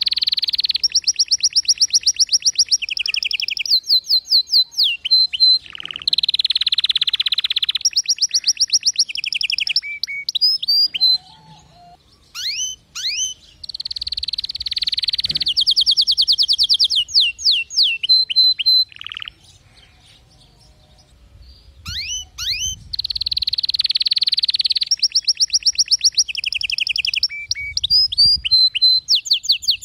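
Domestic canary singing: three long phrases of fast trills and rapidly repeated notes with quick rising whistles, separated by short pauses.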